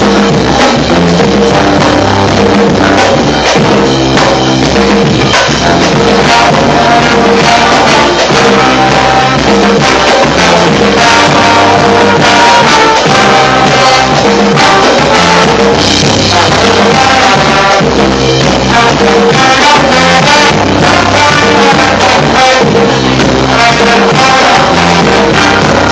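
Band music with drums and percussion, loud and continuous.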